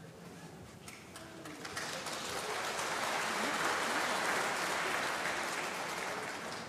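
Audience applauding, swelling about two seconds in and fading away near the end.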